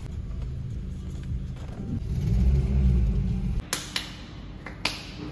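Low rumble of a car, which cuts off abruptly a little over halfway through. It is followed by several sharp clicks and knocks.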